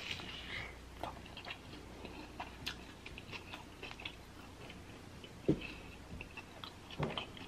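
A person biting into and chewing a birria quesadilla dipped in consommé, with scattered small clicks and crunches and a low thump about five and a half seconds in.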